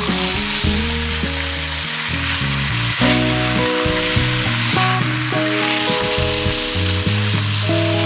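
Food sizzling as it fries, a steady hiss, under background music of held notes that change chord every second or so.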